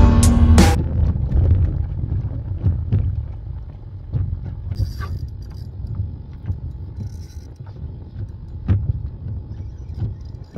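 Wind rumbling on the microphone aboard a small open boat, with scattered light knocks and clicks from a spinning rod and reel being handled and reeled as a fish is hooked. Music cuts off within the first second.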